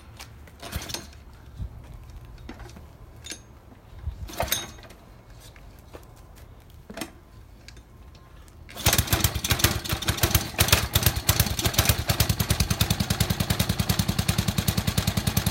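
Small gasoline engine driving a pressure-washer pump, cold-started with the choke on: a few clicks and knocks from the starting attempt, then about nine seconds in it catches and runs steadily with rapid, even firing pulses.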